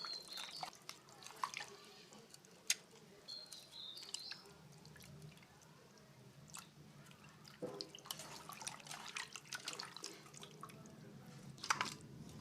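Raw mutton being washed by hand in water: irregular splashes, drips and clicks as the pieces are handled.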